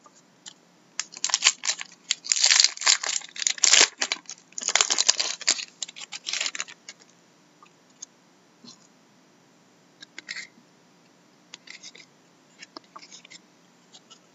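A hockey card pack wrapper being torn open and crinkled: several seconds of loud, sharp tearing and crinkling. Then scattered light clicks and rustles as the cards are handled.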